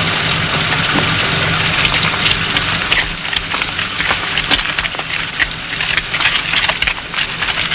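Many hand tools, shovels and hoes, scraping and knocking on dry, stony ground in a dense crackle that thickens about three seconds in. A steady low engine hum sits underneath at the start and fades.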